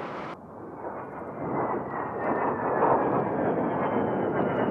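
A-10 Thunderbolt II's twin TF34 turbofan engines running as the jet flies past low: a steady rushing jet noise with a thin high whine that climbs slightly in pitch. The sound changes abruptly just after the start.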